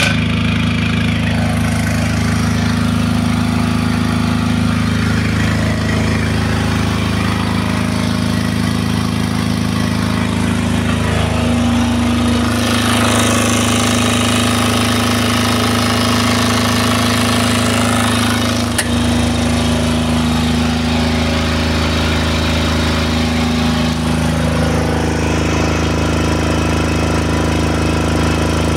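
Tsuzumi TDG10000SDV air-cooled diesel generator engine running steadily.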